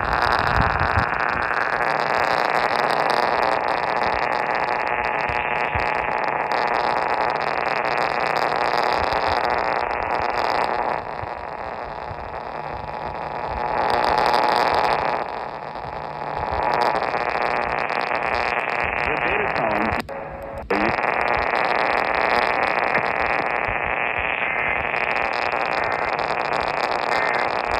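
Radio receiver static: a steady hiss between broadcasts, rising and falling a little in strength and cutting out for a moment about twenty seconds in.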